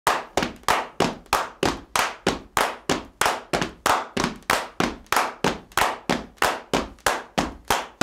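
A steady rhythm of sharp clap-like percussion hits, about three a second, each with a short fading tail, as in a percussive intro music track.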